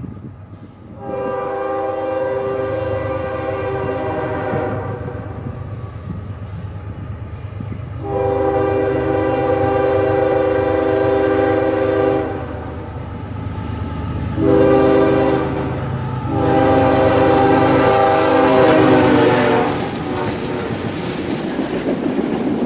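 Locomotive's Nathan K5HL five-chime air horn sounding the grade-crossing signal: long, long, short, long. Under the horn, the steady rumble and wheel clatter of the passing freight train.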